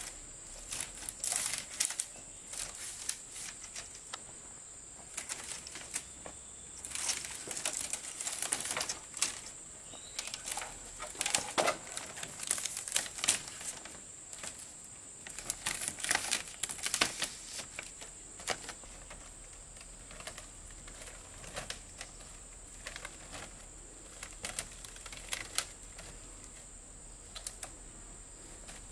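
Split bamboo strips clattering, rustling and knocking in irregular clusters as they are handled and woven into a bamboo fence. A steady high insect drone runs behind.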